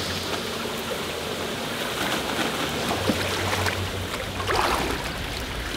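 Shallow river water splashing and sloshing steadily as a person wades through it beside a kayak.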